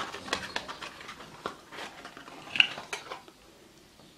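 Glass perfume bottle being handled and set down on a desk mat: a run of small clicks and taps, with one sharp ringing clink about two and a half seconds in.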